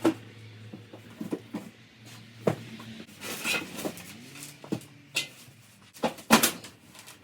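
Scattered knocks and clunks of heavy parts being handled and moved out of a sawmill's shipping crate, the loudest a double knock about six seconds in, over a faint low hum.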